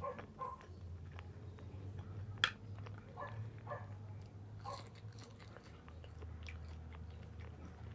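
A person chewing and biting street food close to the microphone, with scattered small clicks and one sharp click about two and a half seconds in.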